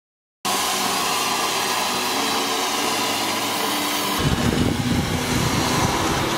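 Steady hiss of steam venting from an overheating bus engine, starting abruptly, with a rougher low rumble joining about four seconds in.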